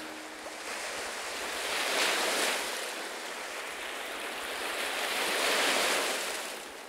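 Sea surf washing up a sandy beach, swelling twice: about two seconds in and again near the end.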